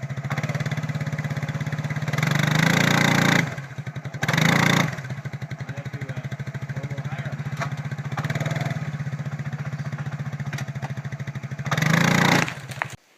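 ATV engine running at a steady idle, with three short louder surges, the first about two seconds in, a short one around four seconds and one near the end. It then shuts off abruptly just before the end.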